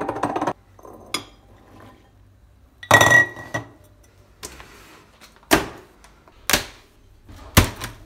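Glass jar and ceramic bowl clinking and clattering as canned peas are tipped into the bowl, with a loud clink that rings briefly about three seconds in. This is followed by four sharp knocks of things set down on a wooden table and counter, about a second apart, the last one a heavier thud.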